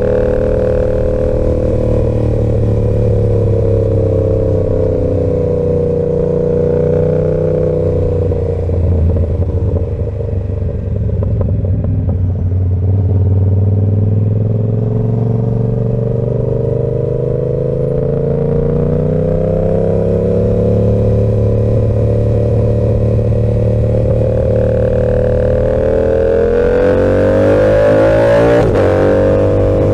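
Yamaha R7's 689 cc parallel-twin engine through an SC-Project exhaust, on the move under light throttle changes. Its pitch sags and climbs gently, runs lower and rougher about ten seconds in, and rises again near the end.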